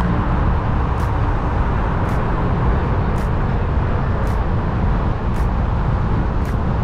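Steady road and traffic noise with a heavy low rumble, with a faint high tick about once a second.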